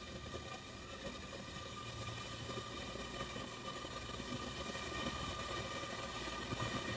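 Steady mechanical hum with a faint high whine, slowly growing louder.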